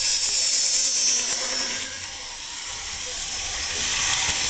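Model diesel locomotive 8181 and its coal hopper wagons rolling past on the track, its motor whirring and the wheels running on the rails. The sound dips about two seconds in and grows louder again near the end as the wagons pass close by.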